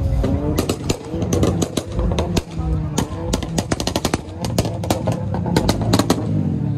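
High-performance engine with a modified exhaust, revving while the exhaust pops and crackles in rapid, irregular bangs, several a second.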